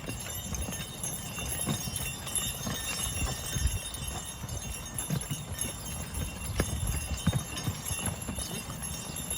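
Hoofbeats of a team of Belgian draft horses walking as they pull a plough: irregular low thuds and knocks.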